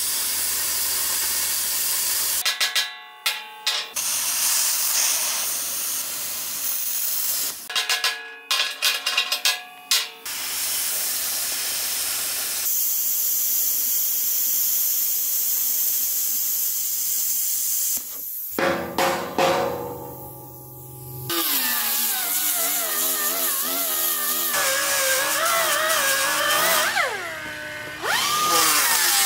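UniMig Razorcut 45 hand-held plasma cutter hissing as it cuts plug slots through high-tensile steel plate, in several separate runs. Between cuts come two groups of sharp, ringing hammer-and-chisel strikes on the plate, knocking the cut-out pieces free. Near the end the arc's tone wavers and glides as the torch moves.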